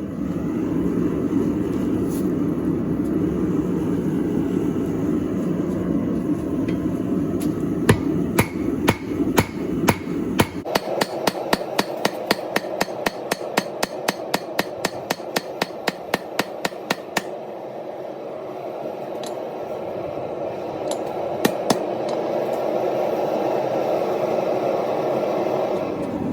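Hammer blows on steel at an anvil, forging Damascus steel: a few spaced strikes, then a quick, regular run of about three blows a second lasting some seven seconds, over a steady rushing noise that runs throughout.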